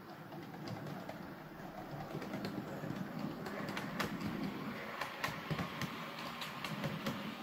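Model railway diesel multiple unit running along the layout's track, its motor and wheels making a low hum that grows louder about three seconds in as it draws near, with irregular sharp clicks from the wheels on the track.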